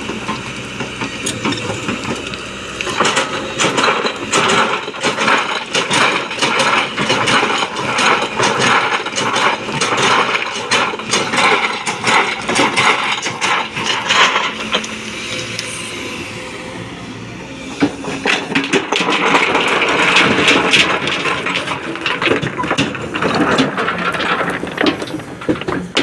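Kobelco SK220XD excavator at work, a continuous dense clattering and rattling of metal over the running machine. It eases off for a few seconds past the middle, then grows louder and busier again.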